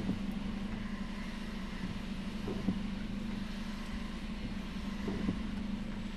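Car engine idling steadily while stopped, heard from inside the cabin as an even low hum, with two faint knocks partway through.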